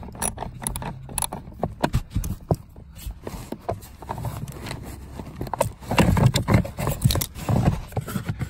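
Irregular clicks, taps and scrapes of a ratchet and socket working the screws of a plastic blower-motor housing, growing busier and louder near the end.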